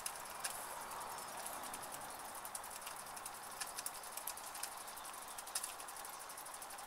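Two small toy steam engines with oscillating cylinders running: a steady hiss with rapid, even ticking of their exhaust, and a few sharper clicks.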